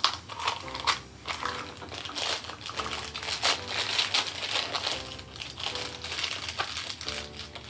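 Plastic packaging crinkling and rustling in a child's hands as a toy capsule is opened and the small doll piece inside is unwrapped, in a busy run of irregular crackles.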